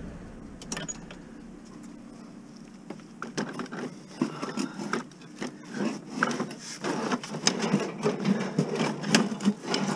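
A heavy round steel stand base being pushed and worked into a car packed with scrap: irregular knocks, clunks and scraping as it bumps and rubs against the load. The knocks begin about three seconds in and come more often toward the end.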